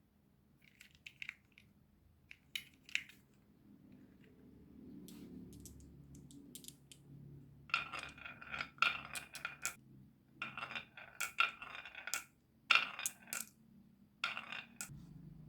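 Marbles clattering down a marble run: scattered clicks at first, then from about halfway on, bursts of rapid hard clicks with a ringing, coin-like clink. A faint low hum runs underneath in the middle.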